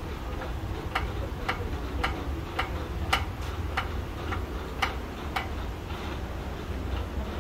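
Manual hydraulic pump of a Noblelift TFD80 scissor lift table being worked stroke by stroke to raise the table, with a sharp click about twice a second; the clicks stop about five and a half seconds in. A low steady hum runs underneath.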